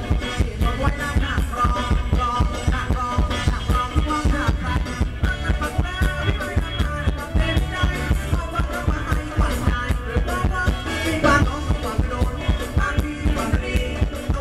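Live band playing Thai ramwong (rumwong) dance music through the stage sound system, with a steady, quick beat.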